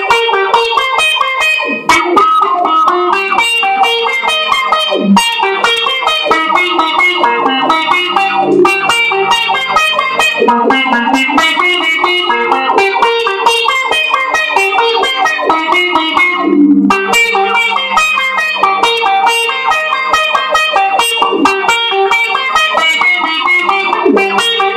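Squier Affinity HSS Stratocaster electric guitar played through a Fender Mustang I amp, soloing on the minor pentatonic scale: a continuous run of quick single picked notes with occasional bends.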